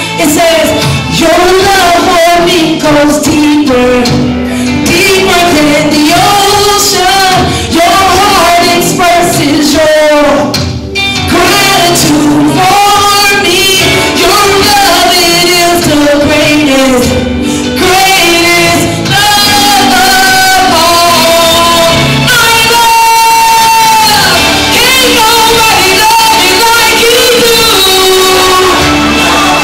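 Gospel song: singing, with a woman's voice leading, over a full band accompaniment, loud and continuous.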